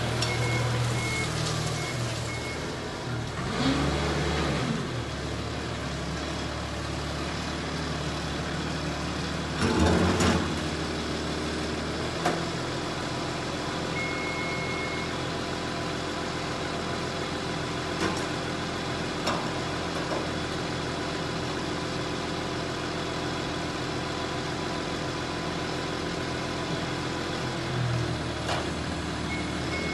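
Toyota forklift engine running steadily, with two louder surges about four and ten seconds in. Its reversing beeper sounds near the start and again about halfway through.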